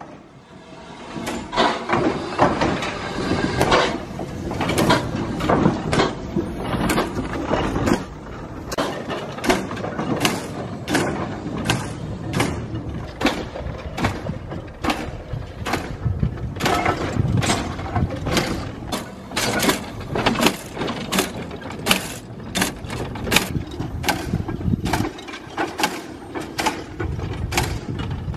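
Steam train running, its sound a steady rhythm of sharp beats about one and a half a second over a constant rushing noise.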